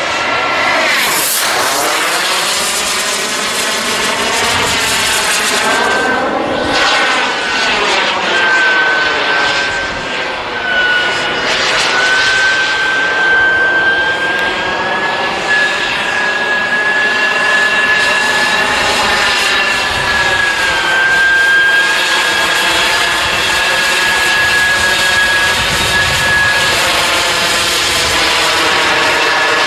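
Radio-controlled model jet's small turbine engine whining steadily in flight, the high whine drifting a little in pitch. The sound swells and sweeps as the jet passes close, sharply about a second in and again several more times.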